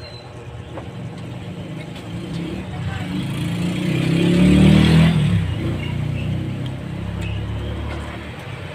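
A motor vehicle passing close by: its engine builds steadily, loudest about four and a half seconds in, then fades away.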